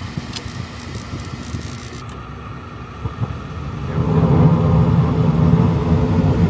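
Rooftop HVAC unit being test-run after an inducer motor replacement: a steady motor rumble that grows much louder about four seconds in.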